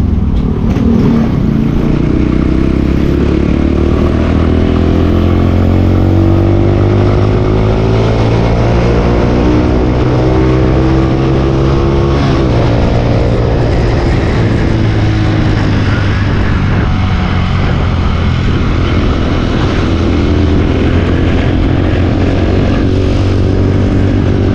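Honda TMX 125 Alpha's single-cylinder four-stroke engine running through a stainless open 'chicken pipe' exhaust, held at raised revs while the pipe heats up. Its pitch slowly rises, eases back about halfway through, and then holds steady.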